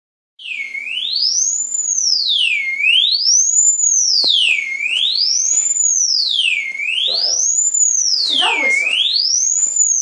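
Electronic dog-whistle tone: one shrill pitch sliding up and down like a siren, a full rise and fall about every two seconds, starting about half a second in.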